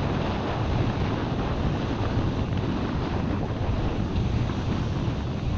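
Wind buffeting the microphone over waves breaking on the beach: a steady rushing noise with a heavy low rumble.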